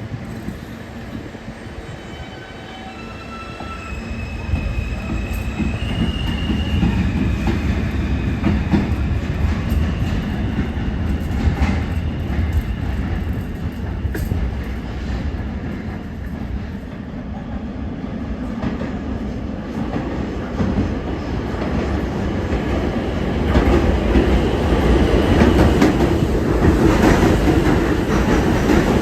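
R160 New York City subway train running on the rails: a steady low rumble of wheels on track with thin, high wheel-squeal tones in the first several seconds. It grows louder about four seconds in and again near the end.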